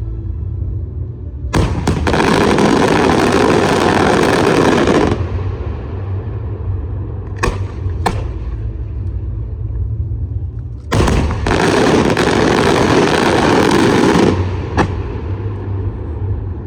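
Fireworks exploding: a bang opens a dense run of rapid crackling reports lasting about three and a half seconds, two single bangs follow, then a second dense run of about three seconds and one more bang, over a steady low rumble.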